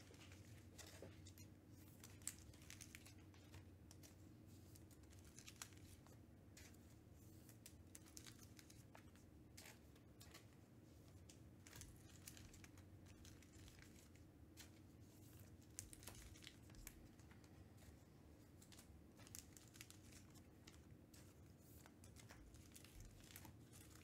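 Near silence: faint, scattered rustling and clicking of trading cards and their wrappers being handled and sorted, over a low steady hum.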